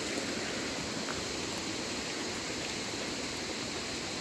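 Steady rushing of a mountain stream's water.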